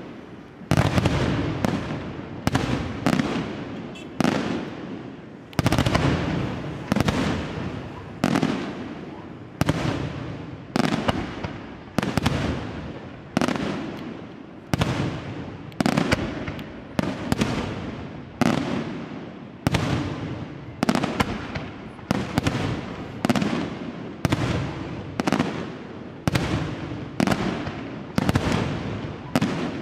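Aerial firework shells bursting in a steady barrage, about one sharp bang a second, each followed by an echo that dies away.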